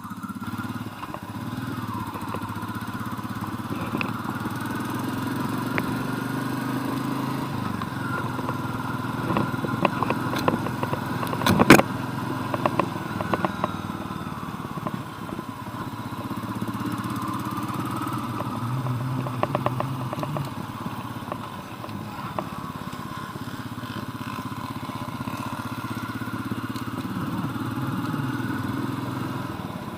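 Royal Enfield Meteor 350's single-cylinder engine under way, its pitch rising and falling as the bike pulls away and changes gear. A sharp click sounds about twelve seconds in.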